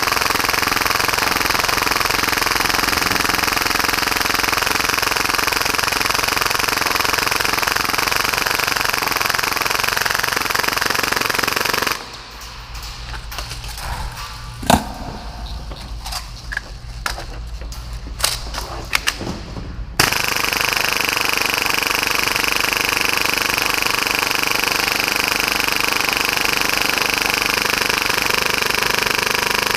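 Full-auto Tokyo Marui Hi-Capa gas blowback airsoft pistol, tuned to about 30 rounds a second, firing a long unbroken string for about twelve seconds. There is then a pause of some eight seconds with a few scattered clicks and knocks, and a second long string starts about twenty seconds in.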